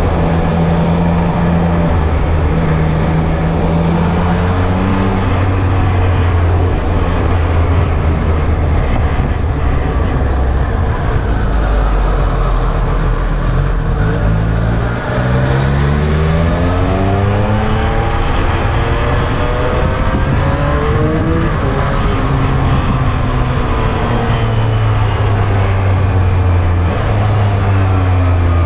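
Triumph Street Triple R's inline three-cylinder engine running under a rider on the move, its pitch changing with the throttle: low for a while, then rising steadily through the middle before easing back, with rushing wind and road noise underneath.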